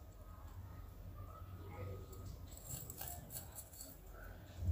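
Loose dry tea poured from a small ceramic cup into a plastic bag, with faint rustling of the bag and light ticks of the leaves.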